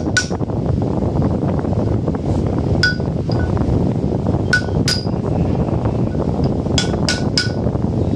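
Hammer striking a metal punch held against the side ring of a new flour-mill (atta chakki) grinding stone, knocking the ring down: sharp, ringing metallic clinks, about seven or eight in small groups of two or three, over a steady low rumble.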